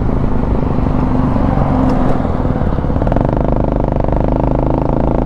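Venom X22GT 250cc automatic motorcycle's single-cylinder four-stroke engine running at low speed as the bike rolls slowly, with a steady engine note in the second half.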